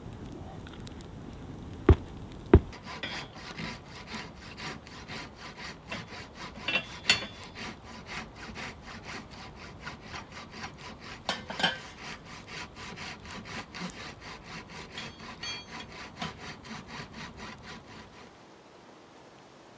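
Hand saw cutting through wood in steady back-and-forth strokes, about three a second; it stops shortly before the end. Two sharp knocks come just before the sawing starts.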